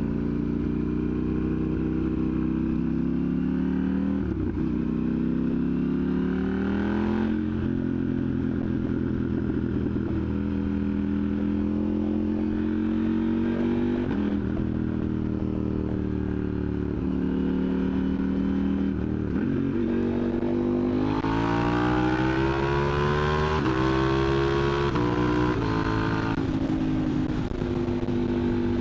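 KTM 890 Duke R's parallel-twin engine through a catless Austin Racing exhaust, loud, while riding. The revs climb and drop back several times as it pulls through the gears, with a longer, harder pull near the end.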